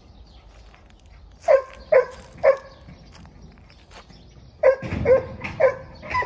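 A dog barking: three short barks about half a second apart, a pause, then four more toward the end.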